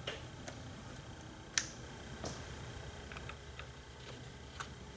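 Scattered small clicks and taps: alligator clips of the auxiliary power lead being clipped onto the battery terminals, and the power cable's plug pushed into the Motorscan 5950 scan tool. The sharpest click comes about one and a half seconds in.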